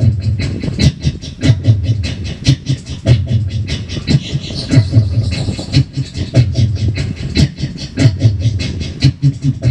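Looped vocal beatbox rhythm played back and layered on a loop station: mouth-made kick thumps and sharp clicks repeating in a steady pattern, with a breathy hiss about four seconds in.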